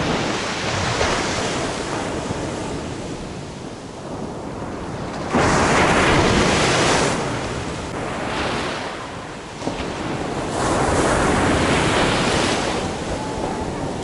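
Rough sea surf breaking on a sandy beach and washing up the sand in rushing surges, with a sudden loud break about five and a half seconds in and another loud stretch from about ten and a half to twelve and a half seconds.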